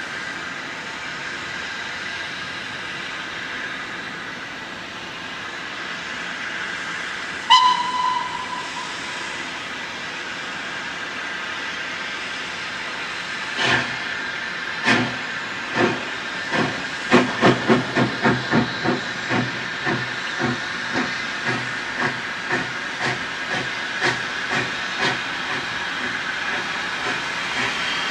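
LNWR 'Coal Tank' 0-6-2T steam locomotive No. 1054 getting under way. A steady hiss of steam is broken by one short whistle blast about a quarter of the way in. From about halfway, loud exhaust chuffs start singly and slowly, then quicken to about two a second as the engine pulls away.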